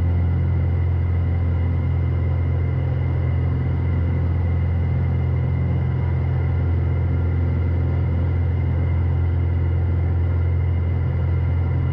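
Steady low drone of a Piper PA-46 Malibu's piston engine and propeller inside the cabin during the climb after takeoff, with a faint steady high whine above it.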